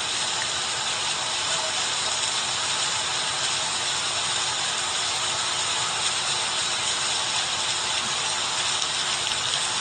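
Floodwater rushing through a street: a steady, unbroken roar of flowing water.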